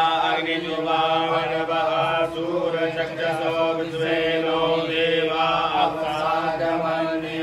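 A man's voice chanting Sanskrit puja mantras without pause, recited on a nearly level pitch.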